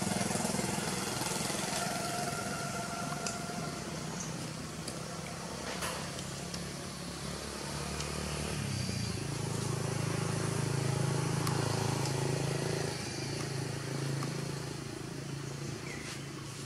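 An engine running steadily with a low hum, its tone shifting about eight seconds in.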